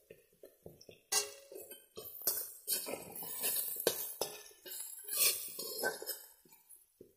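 Metal spatula scraping and clinking against an aluminium kadai as cubed potatoes are stirred and fried in oil, in a rapid irregular run of strikes that starts about a second in and stops shortly before the end.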